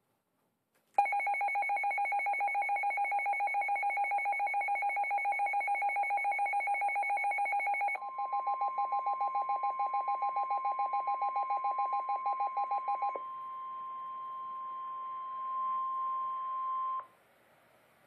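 Midland NOAA weather radios going into alarm for a severe thunderstorm warning: rapid two-pitch electronic beeping starts about a second in. The beeping drops in level when the steady 1050 Hz weather-radio warning tone begins, and stops partway through that tone. The tone then cuts off near the end.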